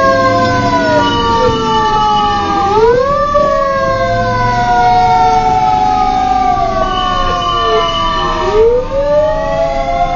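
Fire-truck sirens wailing, heard from inside a fire tanker's cab. At least two sirens overlap out of step, each slowly rising and falling in pitch, over a low engine rumble.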